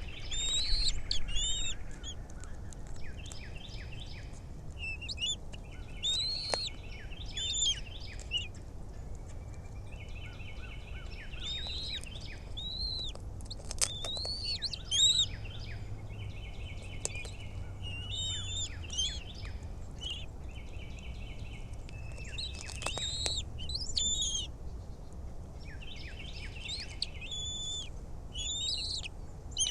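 Birds calling in repeated high chirping phrases every few seconds, some notes sliding and some fast, stuttering runs, over a faint steady low rumble.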